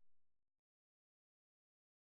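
Near silence: digital silence, with only a faint tail of the music fading out in the first half second.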